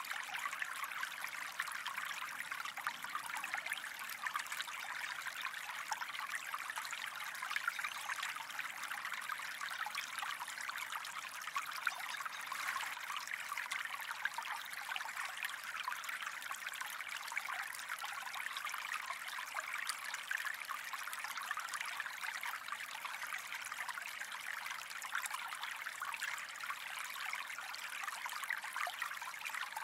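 Gentle stream of running water trickling and splashing steadily, a fine even babble with no pauses.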